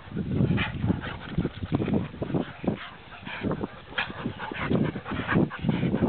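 A dog panting in quick, irregular breaths while walking on a lead, mixed with scuffing steps on a sandy track.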